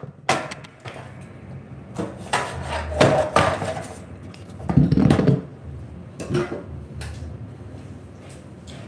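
Irregular knocks and short clattering thumps of things being handled close to the microphone, several in quick succession in the first half and thinning out toward the end.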